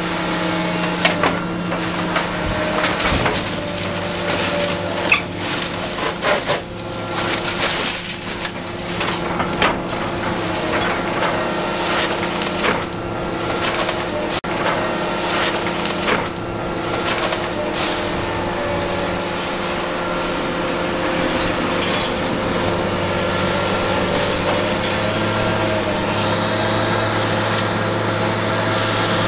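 Excavator engine and hydraulics running steadily while its hydraulic grapple clamps and moves its load, with many irregular knocks and crunches of material being gripped and dropped. The engine's tone grows stronger near the end.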